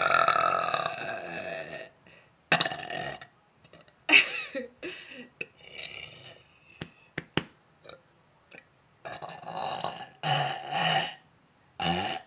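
A woman belching over and over: one long, drawn-out belch lasting about two seconds, then about half a dozen shorter belches with pauses between them.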